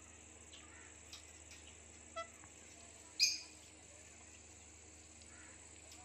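Indian ringneck parakeet giving one short, shrill call about three seconds in, with a fainter, shorter chirp a second before it and a few soft chirps early on.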